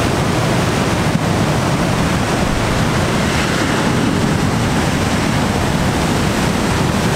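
Heavy ocean surf breaking and washing over rocks: a loud, steady rush of waves.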